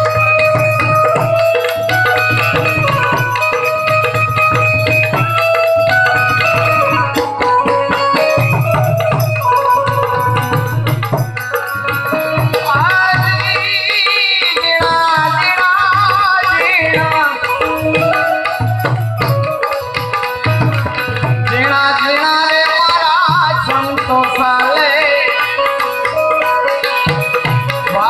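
Gujarati santvani devotional folk music: tabla keeping a steady rhythm under a melody of held notes, with a wavering higher melody line in the middle and again near the end.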